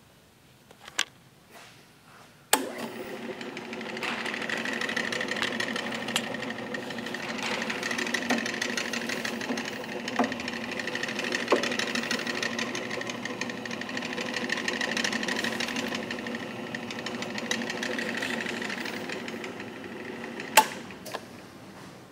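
Jet floor-standing drill press switched on with a sharp click, its motor and spindle coming up to speed and running steadily with a hum. It is switched off with a click near the end and winds down.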